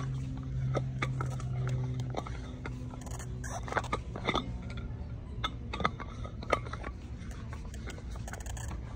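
Shop ambience: a low steady hum that stops about two seconds in, then scattered light clicks and knocks.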